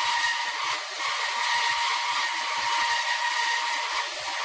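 Ellis 1800 series horizontal bandsaw cutting dry through the steel wall of a compressed-gas cylinder: a steady, high-pitched hiss from the blade with a steady whine in it. The feed has just been opened a little so the blade cuts slightly faster, which raises the pitch a little.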